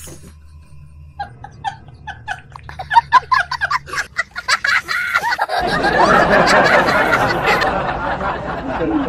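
A person laughing in a run of short, quick bursts, loudest about three seconds in, followed from about five and a half seconds by a fuller, steadier din.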